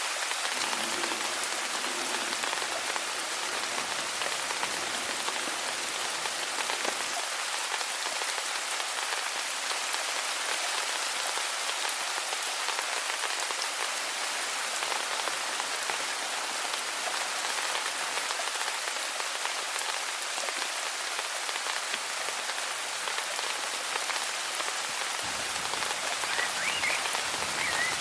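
Steady rain falling and pattering, an even hiss with no let-up, with a few faint short chirps near the end.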